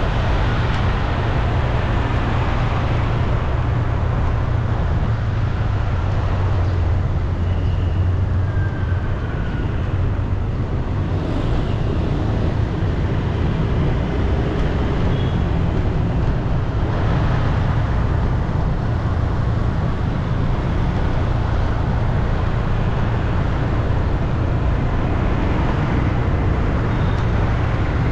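Steady road traffic noise: a continuous low rumble of vehicle engines and tyres.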